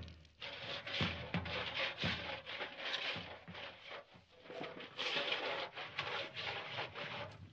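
Footsteps swishing through tall grass: an uneven rustle with soft, irregular steps.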